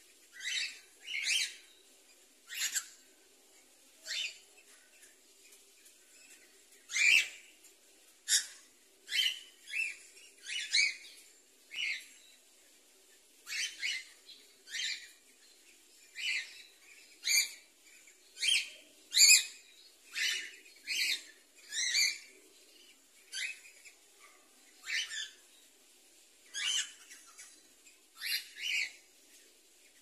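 Cockatiels calling during mating, a male mounted on a hen: short, sharp chirps about one a second, often coming in quick pairs.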